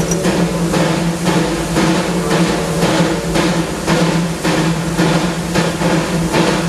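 Disneyland Railroad steam locomotive chuffing in a steady rhythm of about three beats a second over a constant low hum.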